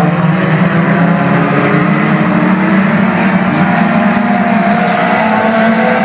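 Several dirt-track stock cars' engines running together as the pack laps the oval: a steady, loud drone in which the engine pitches drift slowly up and down.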